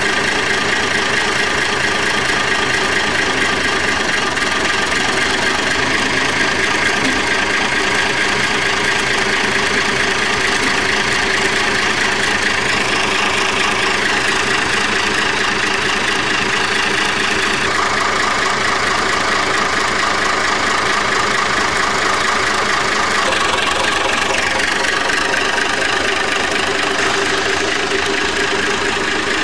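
Diesel engine of a narrow-gauge Lyd1 locomotive running steadily, its note shifting a couple of times in the second half.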